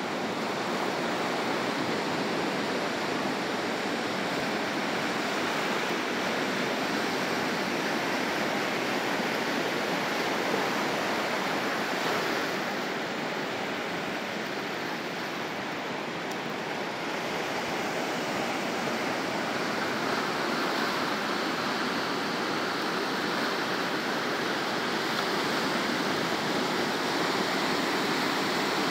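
Ocean surf: a steady rush of small waves breaking and washing over sand and rocks, easing a little about halfway through and then building again.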